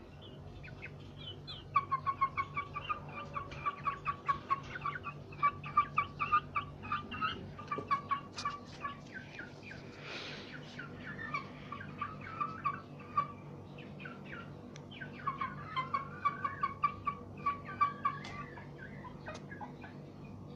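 Chicken clucking in three runs of short, quick calls at about four a second, with pauses between the runs.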